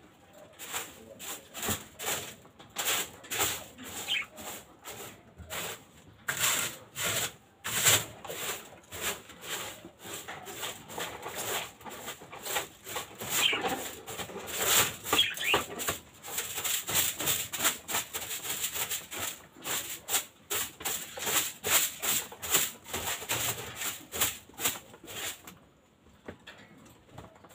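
Brisk scrubbing strokes on a hard surface, about two a second, stopping shortly before the end, with a few short bird chirps among them.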